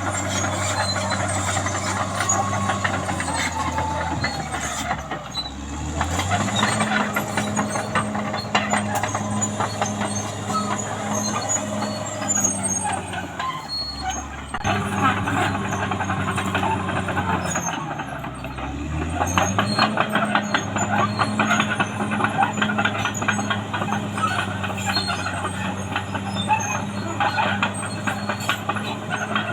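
Caterpillar D6R XL crawler bulldozer working, its diesel engine running under load with rattling track clatter. The engine pitch drops and climbs back up twice, about five seconds in and again around eighteen seconds in.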